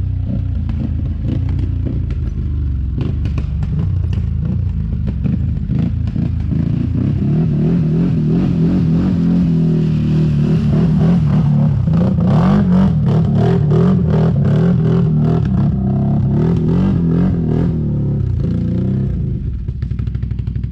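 A quad bike's engine pulling hard through mud as it comes past and climbs away uphill. The engine note rises and falls with the throttle and is loudest about halfway through. Rapid clattering knocks run throughout.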